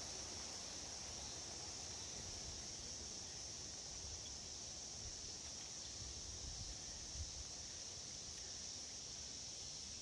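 Wind buffeting the microphone in a low rumble that gusts a little stronger about two-thirds of the way in, under a steady high-pitched drone of insects.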